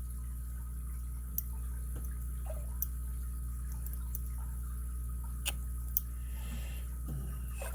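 A few small, sharp metal clicks, spaced a second or more apart, as padlock pins and springs are handled and taken out of the chambers. A steady low electrical hum runs underneath.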